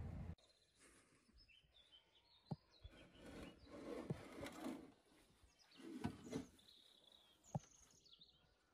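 Faint outdoor birdsong with scattered chirps, over a few light knocks and some rustling as plastic plant pots and bedding plants are handled.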